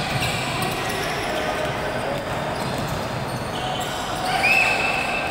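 Basketball being dribbled on a hardwood court, with voices echoing through a large gym. Near the end there is a short high squeak.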